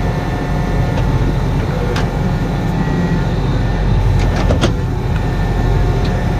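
Farm tractor's engine running steadily while it pulls a potato planter, with a few light clicks about four and a half seconds in.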